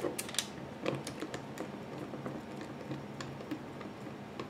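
Scattered light clicks and ticks of a Torx screwdriver working the small mounting screws out of the side of a laptop-size hard drive, metal bit on screw. The clicks come thickest in the first second or so and thin out after.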